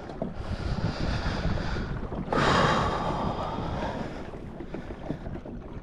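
Water and wind noise on the microphone aboard a fishing kayak at sea, growing louder for about two seconds near the middle.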